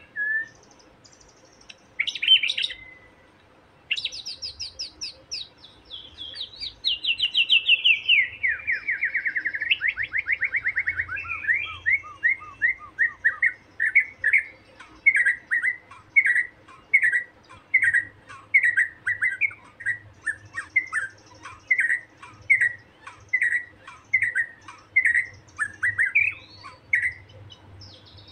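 Young wild white-rumped shama (murai batu) giving taunting 'ejekan' calls. A few short notes come first, then a fast trill that falls in pitch, then a steady run of repeated sharp notes, a little under two a second.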